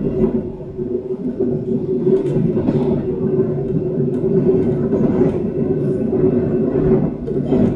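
Taiwan Railways EMU700 electric commuter train running, heard from inside the passenger car: a steady rumble with a constant hum and a few scattered clicks from the wheels and track.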